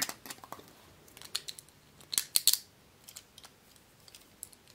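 Small Beyblade parts being handled: a string of short, sharp clicks and light rattles of plastic and metal pieces, busiest a little after two seconds in.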